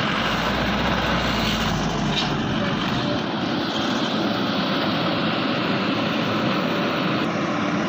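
Heavy diesel machinery engine running steadily at a worksite, with a deeper rumble for the first three seconds.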